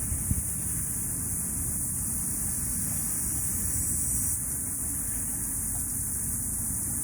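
Cicadas buzzing in a steady high-pitched drone, a little louder about four seconds in, over a low rumble. A couple of brief thumps right at the start.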